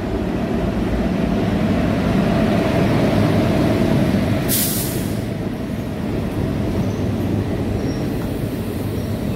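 An express passenger train hauled by a WAP-1 electric locomotive runs past, its coaches rolling by in a steady low rumble of wheels on rails. There is one short, sharp hiss about halfway through.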